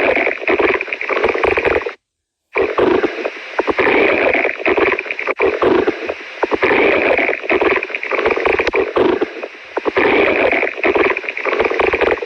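Stomach growling and gurgling, loud and continuous with a rough, constantly shifting texture. It cuts out abruptly about two seconds in, resumes half a second later, and cuts out again at the very end.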